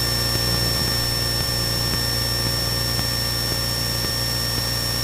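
Cessna 172N's four-cylinder Lycoming O-320 engine and propeller droning steadily in cruise flight, heard inside the cabin, with a thin steady high-pitched whine over it.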